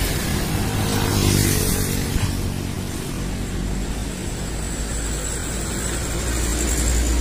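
Hino RM280 coach's diesel engine running as the bus pulls away slowly at low speed. There is a brief hiss about a second in and a thin high whine in the second half.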